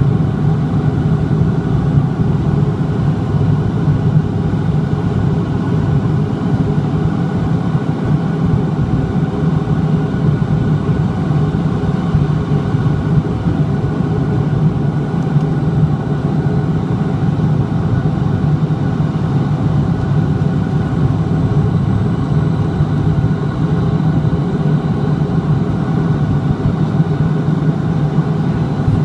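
Steady low drone of a De Havilland Dash 8-400's two Pratt & Whitney PW150A turboprop engines and propellers, heard inside the cabin on final approach with the landing gear down. The drone holds even throughout, with faint steady tones above it.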